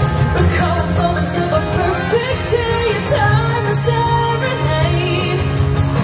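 Show soundtrack music: a pop-style song with a singing voice over a steady bass line.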